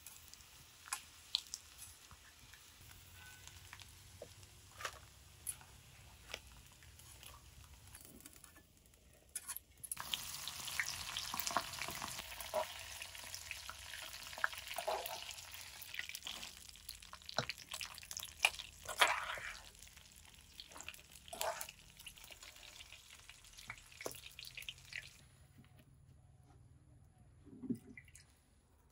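Hot oil sizzling in a wok as food is fried. The sizzle starts suddenly about a third of the way in and stops suddenly several seconds before the end. Sharp clicks and scrapes of a long metal spoon against the pan are heard throughout.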